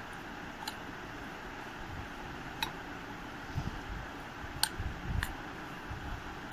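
A spoon stirring flour and hot melted ghee in a mixing bowl, giving a few sharp, scattered clicks against the bowl and soft low thuds, over a steady background hiss.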